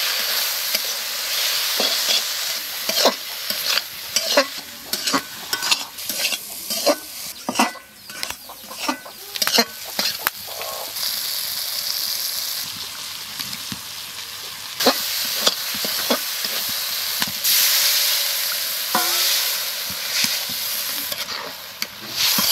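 Chopped onion, tomato and ground spices sizzling in hot mustard oil in a metal kadai while a metal spatula stirs and scrapes them, with many sharp clicks of the spatula against the pan, thickest in the first half.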